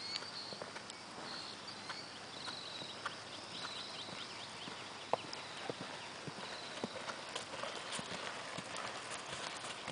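Hoofbeats of a ridden horse, an uneven clip-clop of knocks, with one sharper knock about five seconds in.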